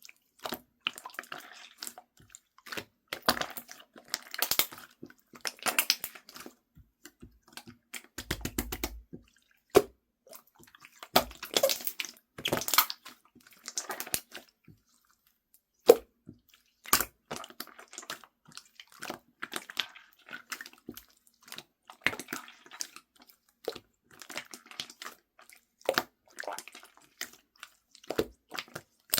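Wet squishing with crackling clicks in irregular bursts, the sound of something soft and sticky being pressed and worked by hand.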